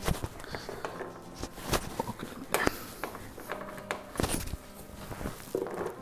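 Fillet tool being worked through a classic Mini's rubber windscreen seal, feeding the fillet strip in: a string of short rubs and clicks of the metal tool against the soap-and-water-lubricated rubber, about one a second.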